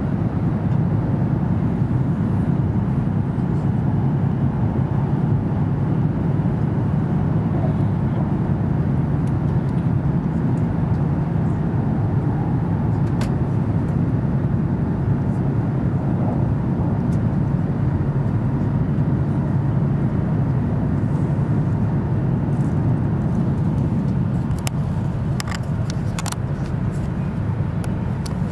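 Steady low rumble of an E7 series Shinkansen train running at speed, heard inside the passenger cabin. A few light clicks come near the end.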